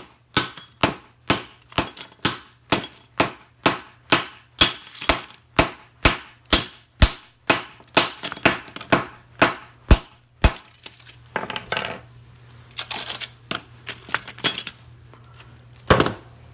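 Small hammer striking the welds on a steel transformer core, about two sharp metallic blows a second for some ten seconds, knocking the welds loose so the core pieces break away from the copper windings. After that, loose metal pieces clatter and shift, and there is one more blow near the end.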